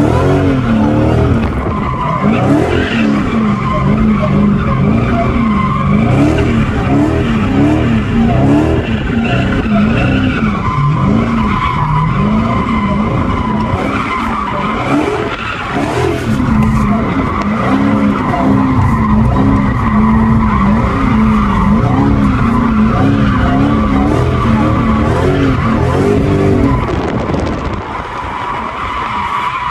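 Dodge Hellcat's supercharged V8 revving up and down over and over, about once a second, with the tyres squealing as the car is slid around.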